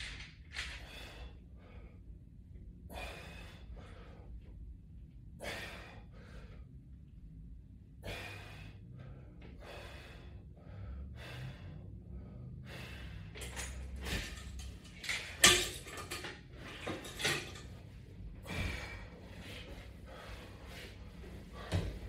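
A man's hard exhalations of exertion, short breaths every second or two during a resistance-band exercise. A few sharp knocks about two-thirds of the way through.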